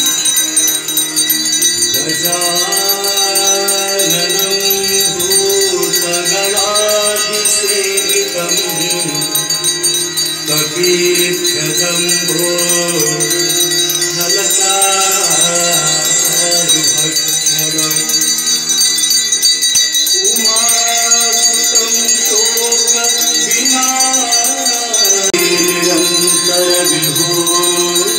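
Devotional aarti song: a sung melody in long phrases, with a steady jingling of bells over it.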